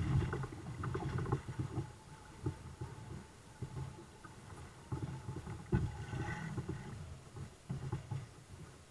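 Wind buffeting the camera microphone in irregular low gusts, with water lapping and splashing against the hulls of a sailing kayak catamaran under way.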